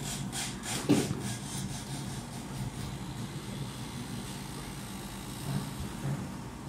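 A quick run of light clicks and rattles, with one sharper knock about a second in, as the roller chain and its sprocket on an ultrasonic sewing machine's roller drive are handled; the clicks die away after about three seconds. A steady low hum runs underneath.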